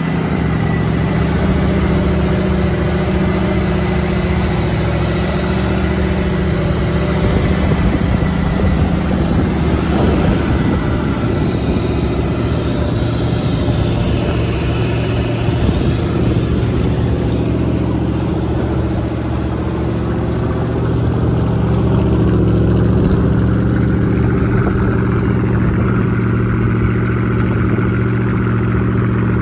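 Freshly overhauled Chrysler 318 marine V8 running steadily on a test stand just after its first start. It picks up slightly about twenty seconds in.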